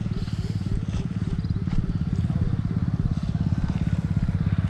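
Small motorcycle engine running steadily, with a rapid, even pulse.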